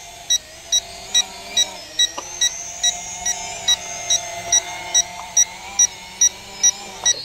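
Small quadcopter drone (Snaptain SP650) whining as it descends and sets down on grass, with a steady electronic beeping, a little over two beeps a second, going on throughout.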